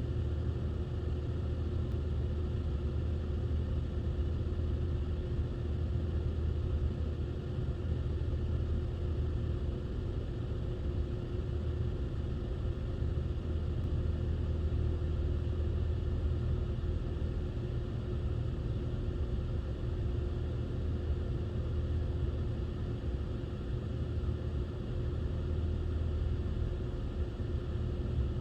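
Car engine running steadily, heard from inside the cabin as an even low rumble with a faint steady hum.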